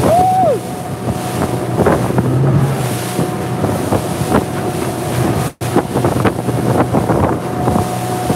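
Inflatable chase boat's motor running at speed while the hull slaps through choppy water and spray splashes over the tube, with heavy wind buffeting the microphone.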